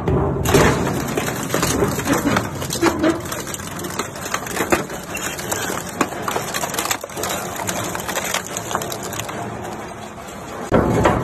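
Twin-shaft shredder tearing up a steel drum: a dense run of crunching, cracking and snapping metal over the grind of the cutter shafts. It thins out as the drum is swallowed, then loud crunching starts again abruptly just before the end.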